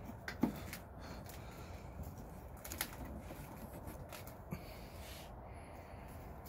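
Faint clicks, knocks and scrapes of a 100-amp main breaker being pushed and wiggled by hand against the electrical panel's metal as it is worked onto the bus connections, not yet fully seated. A sharper knock comes about half a second in and another near three seconds.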